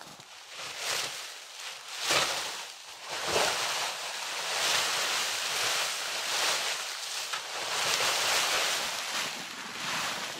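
A snow brush swishing and scraping as heavy snow is swept off parked snowmobiles and their covers, with the rustle of a snow-laden cover being dragged off. It comes as repeated hissing sweeps that swell and fade, with a few sharper strokes in the first few seconds.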